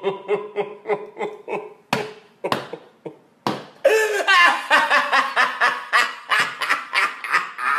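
A man laughing hysterically in quick repeated bursts. After a short break with a few sharp clicks, the laughing comes back louder and shrill about four seconds in and keeps going.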